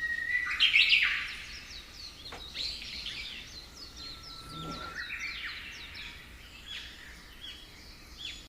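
Rainforest birds calling over each other: many short, quick, downward-sweeping chirps, with a couple of long steady whistled notes. The calls are loudest in a dense burst about a second in.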